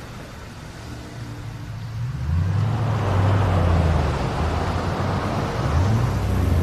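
Motor vehicle running: a steady low engine hum with road noise that swells about two seconds in.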